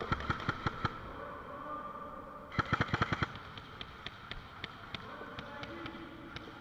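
Airsoft guns firing: a few quick shots at first, a rapid burst of about eight shots roughly two and a half seconds in, then scattered single shots.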